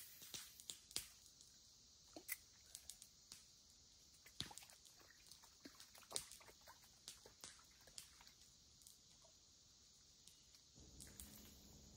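Faint steady chirring of insects, with scattered small clicks and ticks.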